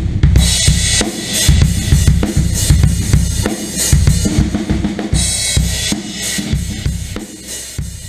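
Drum kit playing a beat with bass drum and snare, with cymbal crashes about half a second in and again about five seconds in, fading out near the end.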